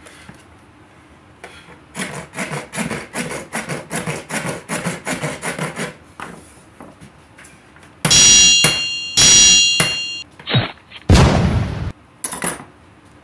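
A hand tool scraping and prying rapidly at the plastic casing of a round device that won't open, about four strokes a second. Then come several loud bangs, the first two with a ringing high tone.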